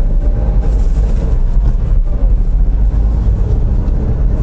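Honda S660's small turbocharged three-cylinder engine, fitted with an HKS aftermarket exhaust, running steadily under way, together with road noise: a constant deep rumble with a faint engine hum above it.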